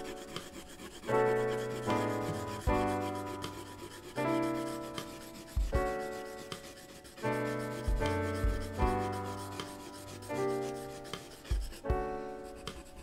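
Graphite pencil rubbing on drawing paper as the background is shaded in, under soft background music of slow chords, each struck and left to fade, about every second and a half.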